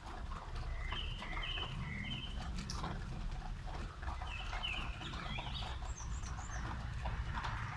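Steady rain with a low background rumble. Over it a bird calls in short chirps: three about a second in, three more a little after the midpoint, then a few higher, thinner chirps.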